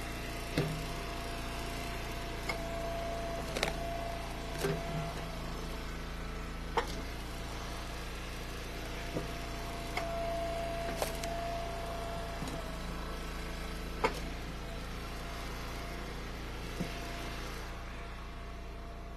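Gas-engine hydraulic log splitter running steadily. A steady whine rises twice for a few seconds as the ram works. Scattered sharp cracks and knocks come from hickory rounds splitting and pieces dropping onto the splitter's table.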